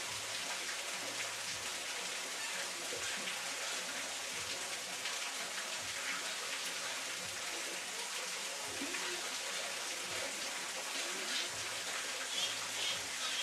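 Water falling in many thin streams and drops from an overhang down a mossy rock face, splashing steadily onto rock and pooled water below.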